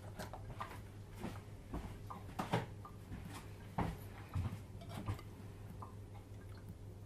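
Scattered clicks, knocks and clinks of kitchen work at the sink, loudest about two and a half and four seconds in, over a steady low hum.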